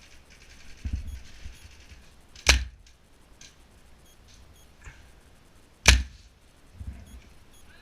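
Airsoft rifle firing two single shots about three and a half seconds apart, each a sharp crack. There are a couple of dull low thuds in between.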